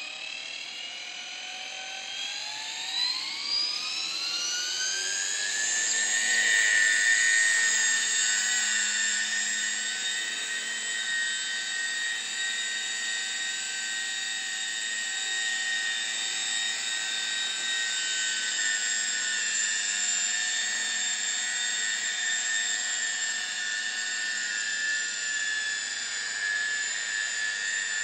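JR Voyager E electric RC helicopter spooling up: a whine that rises steadily in pitch over the first six seconds as the motor and rotor come up to speed, then holds steady while the helicopter lifts off and hovers.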